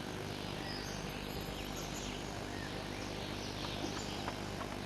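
Faint nature ambience: scattered short, high bird-like chirps over a steady insect-like hiss.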